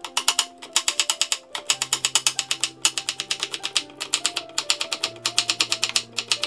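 Chef's knife chopping quickly through carrot onto a wooden cutting board, about seven cuts a second in runs with brief breaks. Soft background music with held notes underneath.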